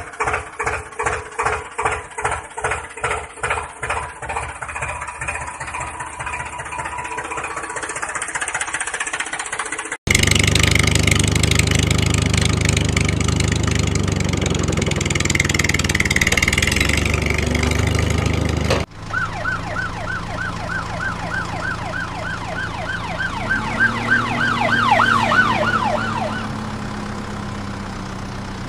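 Vehicle engine sounds in three parts, changing at two abrupt cuts. First a diesel tractor-type engine chugging at about two beats a second, then a louder steady engine noise, then a fast warbling siren-like tone over an engine hum that rises in pitch near the end.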